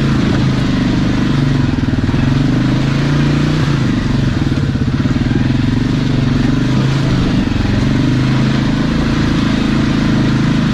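Polaris Ace 570's single-cylinder engine running steadily under light throttle, its pitch wavering slightly up and down as it is driven over rough trail.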